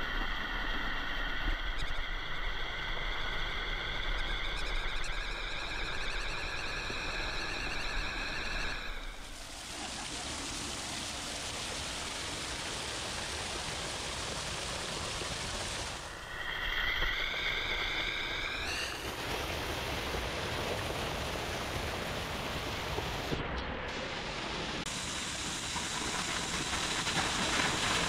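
A narrow waterfall pouring down a rock face and splashing right at the microphone, a steady rushing. A high wavering whine runs over it for about the first third and comes back briefly a little past the middle.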